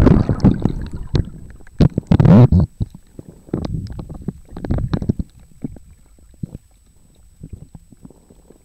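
Muffled underwater sound of a camera just dipped into the sea: water sloshing and bubbling over it in loud surges at the start and about two seconds in. Scattered clicks and knocks follow, then it settles to a low rumble from about six seconds.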